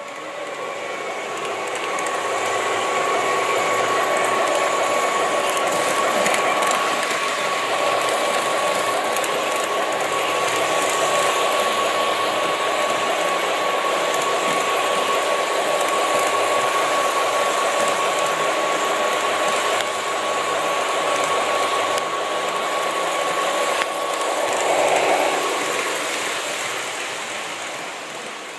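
O scale model trains running on three-rail track: the steady whir of the locomotive's motor, gearing and wheels on the rails, with a steady whine. It grows louder in the first few seconds as the train nears and fades near the end.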